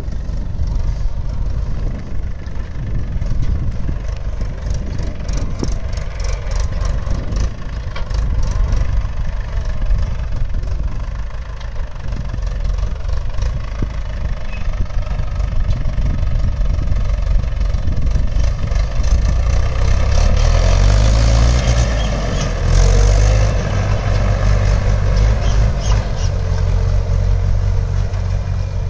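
Mahindra 575 DI tractor's four-cylinder diesel engine running steadily under load as it pulls a seed drill through tilled soil. It grows louder about twenty seconds in.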